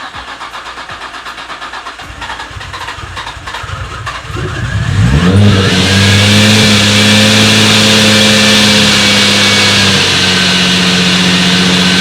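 Supercharged Infiniti G35's 3.5-litre V6 cranking on the starter for about four seconds, then catching, rising in pitch and settling into a steady fast idle that steps down slightly near the end.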